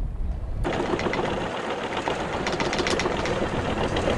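A fast, steady mechanical rattle that starts abruptly under a second in, after a short stretch of wind and water noise.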